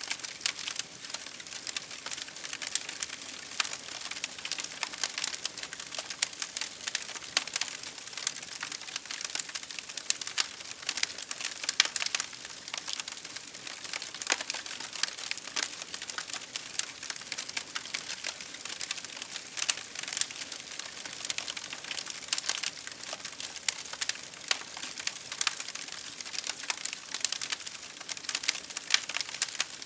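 Fire crackling: a steady stream of small pops and snaps, with a sharper pop about twelve seconds in.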